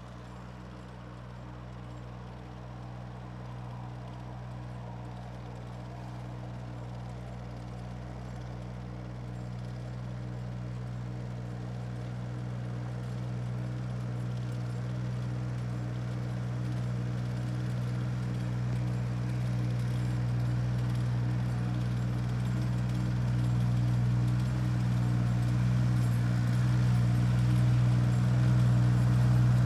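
Skid-steer loader engine running at a steady pace, growing steadily louder as the machine drives closer.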